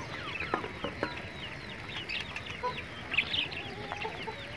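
Chickens clucking, with many short, high, falling chirps scattered throughout.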